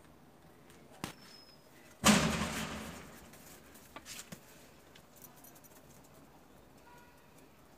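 Wood fire burning under a lidded cooking pot: faint crackles, with one loud sudden crack about two seconds in that fades away over about a second.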